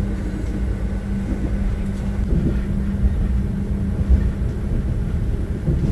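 Steady low rumble inside a passenger train carriage as the train runs, with a steady hum that stops about halfway through.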